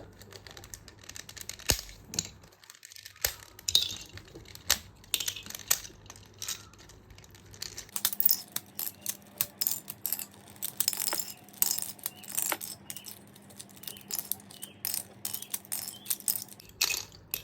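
Plastic Rubik's cube pieces clicking and clattering as the cube is pried apart piece by piece and the loose pieces are set down: many sharp, irregular clicks.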